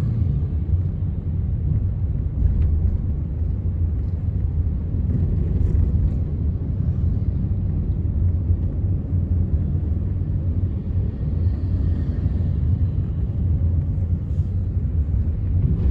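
Steady low rumble of a car driving along, heard from inside the cabin: engine and road noise.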